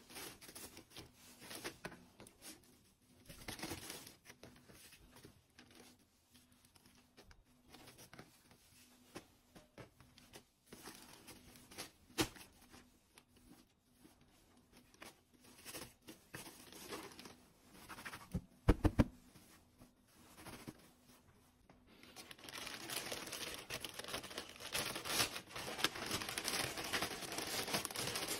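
Clear plastic packaging and bubble wrap rustling and crinkling under handling, scattered at first and turning into steadier, louder crinkling about three-quarters of the way through. A quick pair of sharp knocks a little past two-thirds through is the loudest sound.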